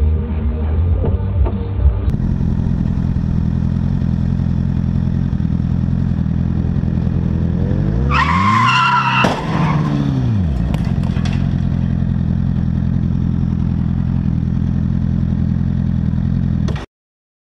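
Tyres squeal loudly as a vehicle skids, for about two seconds starting around eight seconds in, with a sharp knock during the squeal and a few light clanks after it. A steady motorcycle engine drone runs underneath and cuts off suddenly near the end.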